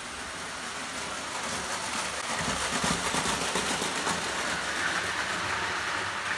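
O gauge Lionel tinplate toy train running on three-rail track, a steady rumble of wheels and motor with fine rapid clicking, louder as it passes close about three seconds in.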